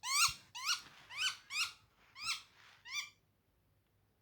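Egg-bound hen budgie giving about seven short, harsh distress calls, each rising then falling in pitch, spacing out and fading until they stop about three seconds in, as she is handled to be given medicine.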